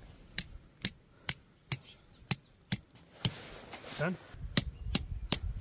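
Tent pegs being hammered into the ground: a run of sharp knocks about two a second, pausing briefly a little past halfway.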